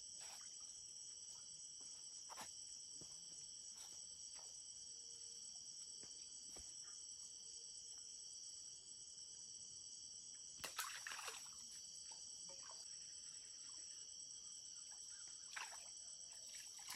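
Steady, high-pitched chorus of insects singing continuously at several pitches, with a brief louder noise about eleven seconds in.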